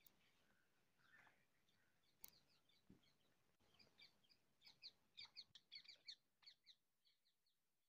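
Faint bird chirping: a quick run of short, high chirps, several a second, starting a little past the middle and fading out near the end.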